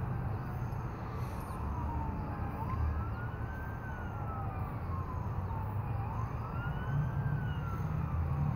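An emergency vehicle's siren wailing faintly, its pitch climbing quickly and then sliding slowly down, about two full cycles, over a steady low rumble.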